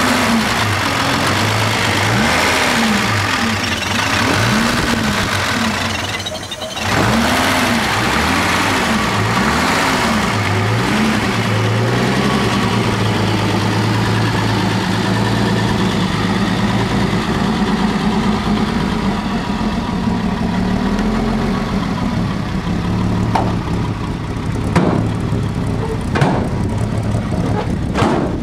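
1964 Mercedes-Benz 230SL's straight-six engine running, revved in quick blips, its pitch rising and falling about once a second, with a brief dip about six seconds in; after about twelve seconds it settles to a steady idle. A few sharp clicks sound near the end.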